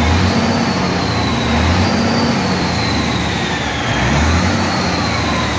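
Scania V8 diesel truck engine blipped sharply on the throttle three times, the turbocharger whine rising with each blip and falling away between them as the turbo builds boost.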